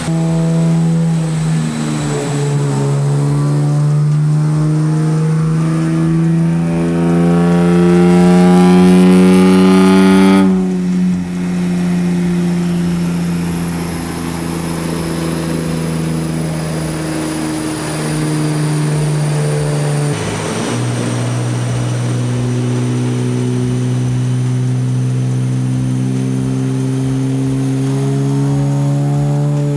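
2023 Nissan Z's twin-turbo 3.0-litre V6 running on a chassis dyno. The engine note climbs steadily for several seconds and drops suddenly about ten seconds in. It then holds fairly steady, dips about twenty seconds in, and climbs again near the end.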